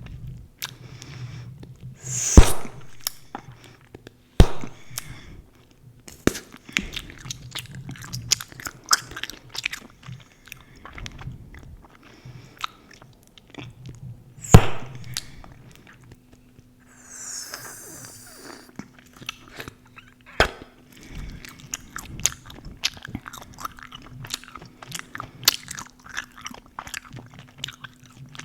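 Close-miked gum chewing, a steady run of wet smacks and clicks. Two loud sharp pops come about two seconds in and again near the middle, likely gum bubbles popping. A faint steady hum starts past the middle.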